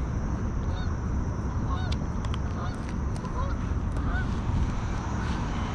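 Geese honking faintly, short scattered calls over a steady low rumble.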